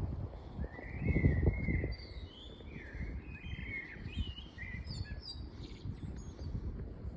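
Songbirds chirping and singing in quick, short notes, several overlapping. Under them, a low rumbling noise on the microphone, loudest about a second in.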